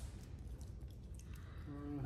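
Low steady room hum with a few faint light clicks, and a short pitched voice-like sound near the end.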